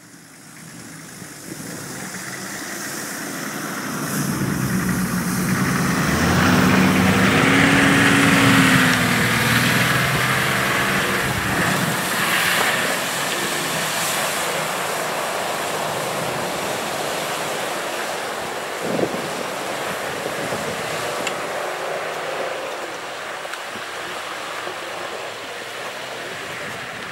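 Nissan Patrol off-road SUV's engine running under load as it drives through a shallow river, with water splashing and churning around it; the engine note rises and falls about eight seconds in. A single sharp knock is heard near the two-thirds mark.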